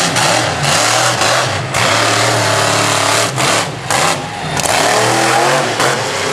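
Monster truck engine revving up and down repeatedly, loud, with short drops in between.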